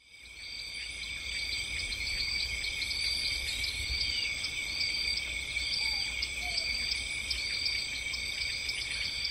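Crickets chirping in a steady, high-pitched night chorus, with regular repeated chirps over a continuous trill and a faint low rumble beneath.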